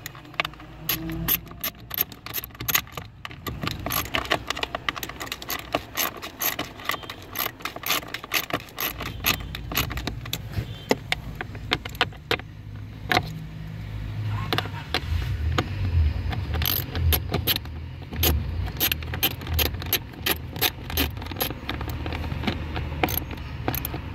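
Hand ratchet clicking in quick, irregular runs as bolts are tightened, with low dull bumping underneath from about the middle on.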